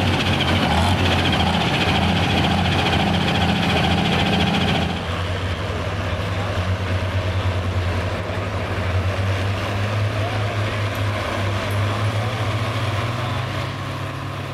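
Diesel engines of Light Pro pulling tractors idling while hooked to the sled. The first is louder. About five seconds in the sound drops to a quieter idle, which rises slightly in pitch near the end.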